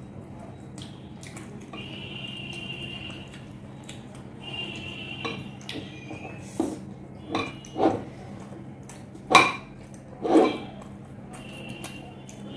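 Eating by hand from glass plates: flaky paratha torn and scooped through chilli chicken gravy, with a handful of sharp clinks and knocks against the glass plates in the second half, the two loudest about a second apart.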